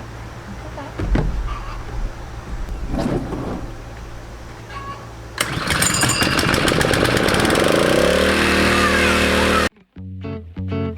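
Gasoline pressure washer engine starting suddenly about five seconds in and running loudly for about four seconds, after a low hum and a few knocks. It cuts off abruptly and guitar music begins near the end.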